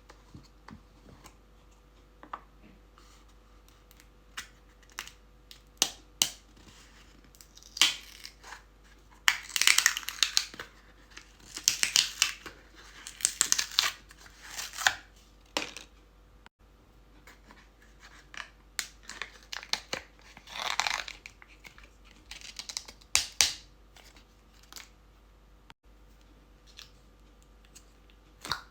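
Close-up handling sounds: scattered small taps and clicks, with several bursts of rustling and crinkling, the longest a few seconds long in the middle.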